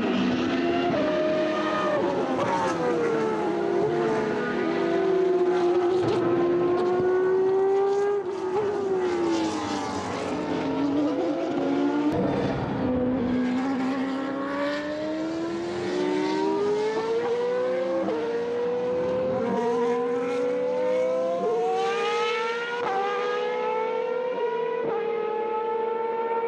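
V12 engines of Superleague Formula Panoz DP09B race cars running on track. The engine notes fall and rise in pitch, with overlapping notes where cars pass. Near the end the note climbs and drops sharply a few times as the gearbox shifts up.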